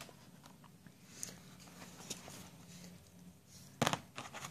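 Faint handling of small plastic Kinder Joy toy parts, then a short cluster of sharp plastic clicks and knocks near the end as the pieces are picked up and fitted together.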